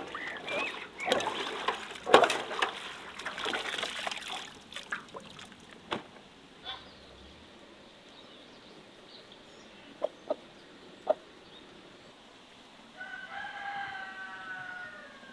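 Metal clattering and scraping as a metal mesh dome cover is handled over large metal trays, loudest in the first few seconds. Later, in a quieter stretch, a rooster crows once near the end.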